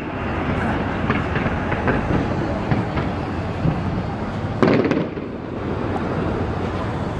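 Aerial fireworks shells bursting and crackling overhead in a dense continuous rumble of pops, with a louder burst about four and a half seconds in.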